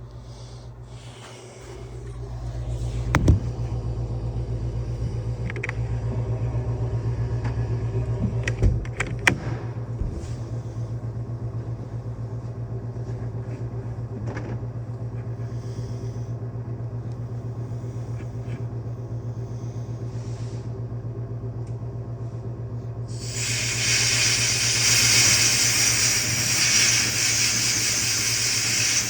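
A steady machine hum starts about two seconds in, with a few sharp knocks, then a loud hiss starts suddenly near the end.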